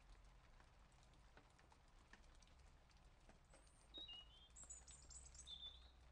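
Near silence: faint scattered clicks of a computer mouse and keyboard, with a few faint, short, high bird chirps about four to six seconds in.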